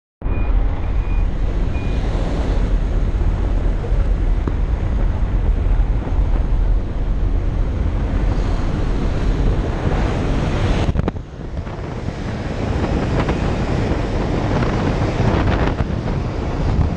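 Wind rushing through the open door of a skydiving jump plane in flight, buffeting the helmet camera's microphone, with the aircraft's engine running under it. Three short high beeps sound in the first two seconds, and the wind noise drops briefly about eleven seconds in.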